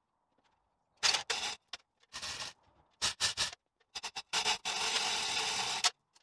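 Hand chain hoist being worked to move a rear axle: the chain rattles through the block in several short pulls, then in one longer steady run of about a second and a half near the end.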